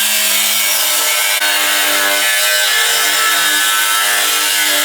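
Power tool cutting metal: a loud, continuous grinding screech with ringing tones that shift in pitch as the cut goes on.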